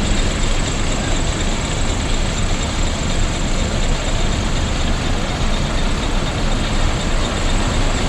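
Intercity bus running on the road, a steady loud mix of engine and road noise that does not change.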